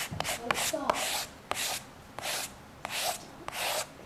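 A Pampered Chef scraper rubbed in repeated strokes over a paper print laid on wet medium on a stretched canvas, about three strokes every two seconds. It is burnishing the laser-copied image down to get full contact for an image transfer.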